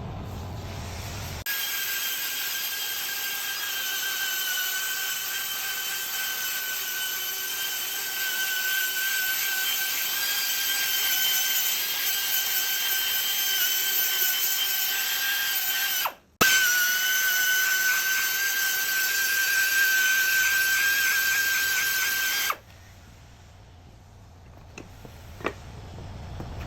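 Machine tool cutting a stainless steel block: a steady, high-pitched whine with a clear ringing tone over a hiss of cutting. It breaks off for an instant about two-thirds of the way through, then stops near the end, leaving a quieter background with a couple of clicks.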